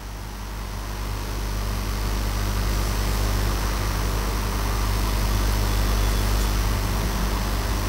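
A steady low mechanical hum with hiss, swelling over the first two seconds and then holding steady.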